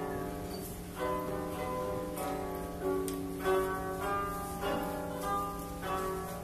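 Koto, the Japanese long zither, played live: plucked notes that ring and fade, with a fresh cluster of plucks about every second.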